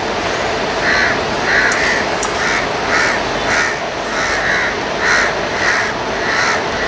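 Crows cawing over and over, about two caws a second, over a steady background rumble of an electric suburban train moving through the station tracks.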